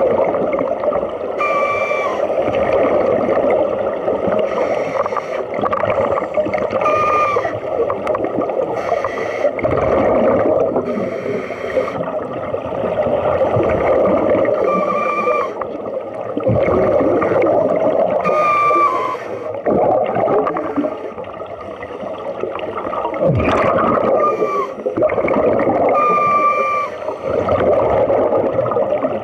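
Scuba diver breathing through a regulator underwater. Regular cycles of a short hiss with a faint whistling tone alternate with a longer rush of gurgling exhaust bubbles, repeating about every four to five seconds. One sharp knock about 23 seconds in.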